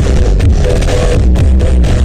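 Loud music with heavy bass and a steady beat, played through a large outdoor PA sound system during a sound check.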